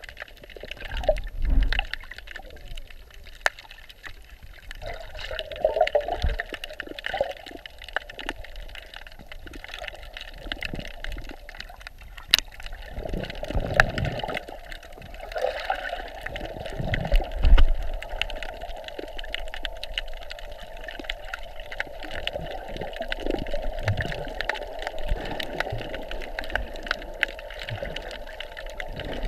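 Underwater sound from a submerged camera: muffled swishing and gurgling of moving water, with irregular low thumps and occasional sharp clicks from the water and the swimmer's strokes.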